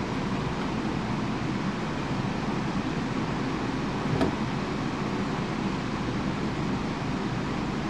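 Steady hissing noise, like a fan or air rushing, with a single sharp knock about four seconds in.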